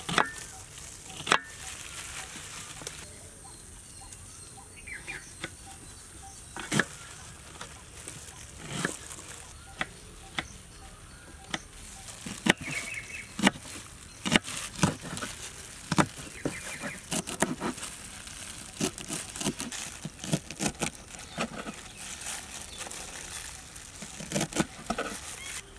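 Kitchen knife chopping onion and then leafy green herbs on a wooden cutting board: irregular sharp knocks of the blade on the board, few at first and coming faster in the second half.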